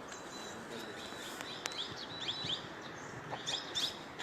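Small birds chirping, with short high chirps in quick clusters about two seconds in and again near the end, over a steady background hiss.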